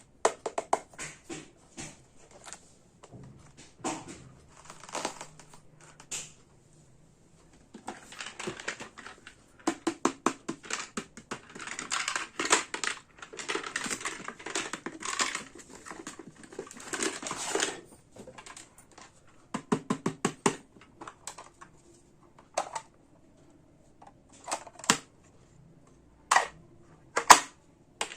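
Small hard plastic toy kitchen pieces being handled, clicking and tapping against each other, with fast runs of clicks in the middle and scattered single taps near the end.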